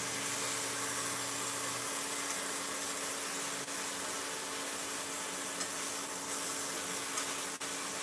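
Pieces of armadillo meat sizzling in a frying pan as they brown, with a steady hum underneath; a lower hum cuts off about two seconds in.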